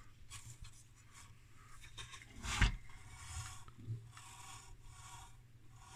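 Faint handling noise of rubbing and scraping as the opened heater's case and wiring are handled, with one louder knock about two and a half seconds in.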